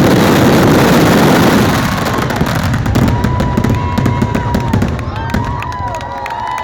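Fireworks crackling and popping densely for the first couple of seconds, then thinning to scattered pops.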